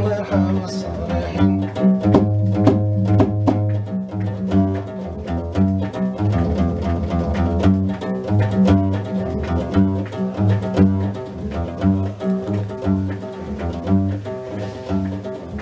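Guembri, the three-string Gnawa bass lute, plucked in a repeating rhythmic bass riff of low, deep notes. A sung phrase trails off right at the start, leaving the instrument playing alone.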